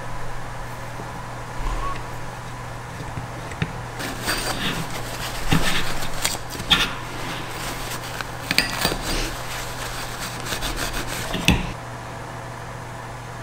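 Paper shop towel wiped and rubbed over a solid-state relay and its aluminium heatsink: scratchy rubbing in irregular spells, mixed with sharp clicks and knocks as the parts are handled, stopping a little before the end.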